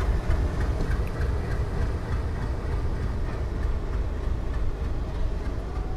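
WDP4 diesel locomotive's engine running with a steady low rumble.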